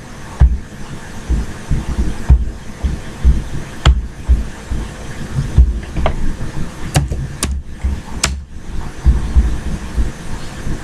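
Computer keyboard typing and mouse clicks picked up by a nearby microphone. They come as irregular low thumps, with a handful of sharp clicks in the middle of the stretch.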